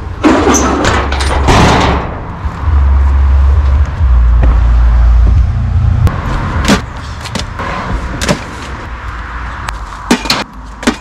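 Junk being thrown into a bin or box with a noisy clatter, then a low rumble for a few seconds and scattered knocks and thuds.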